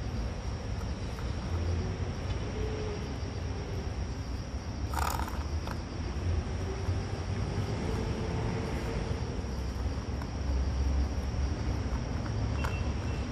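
A cat eating dry food from a bowl: faint, irregular crunching clicks over a steady low background rumble, with one short louder noise about five seconds in.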